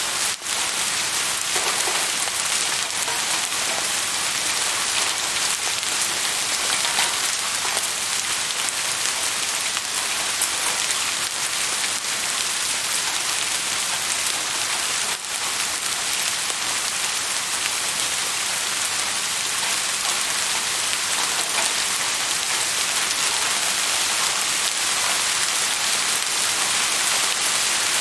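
Steady, dense rain falling on surfaces, an even hiss of many drops. The level drops twice very briefly, just after the start and about halfway through.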